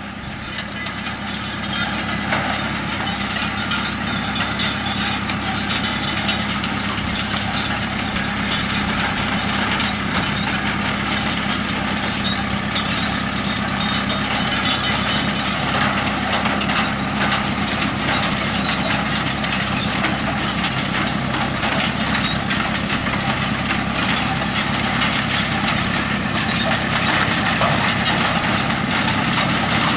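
Massey Ferguson 5711S tractor engine running steadily while towing a potato harvester that lifts onions, with a constant rattle of machinery over the engine hum. The sound rises over the first two seconds, then holds steady.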